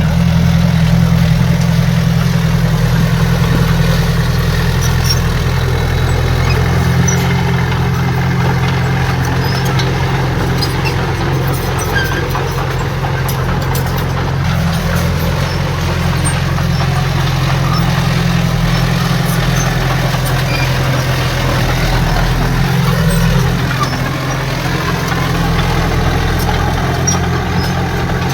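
Heavy diesel engine of earthmoving machinery running steadily with a deep low hum.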